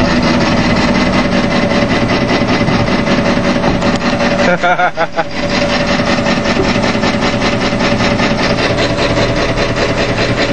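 A 1988 Ford F-150's 4.9-litre inline-six engine running, with a fast, even rasping over it like something grinding, and a brief dip about four and a half seconds in.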